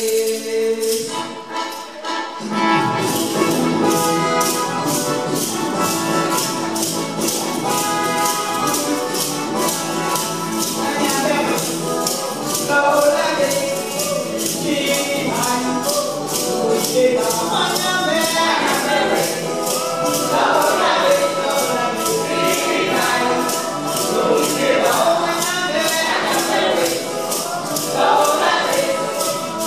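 Church choir of men and women singing a hymn, backed by hand percussion keeping a steady beat of about two strokes a second. The singing and beat start up together about two seconds in, after a brief lull.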